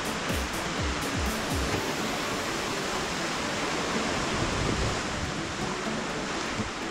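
Steady rushing of surf against the rocky shore, with a few low thumps in the first two seconds.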